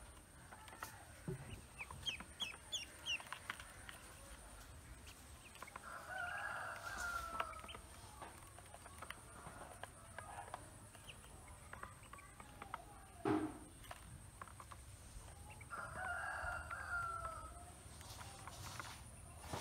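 A rooster crows twice in the background, about six and sixteen seconds in. Between the crows, ducklings peck feed off a plastic basin with many small clicks, with a short run of high peeps about two seconds in and a single thump near thirteen seconds.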